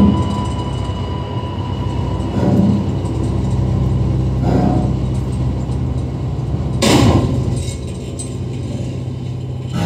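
Steady low drone of a propeller plane's engines heard from inside its cargo hold, with a couple of dull metal clanks and one sharp, loud crash about seven seconds in.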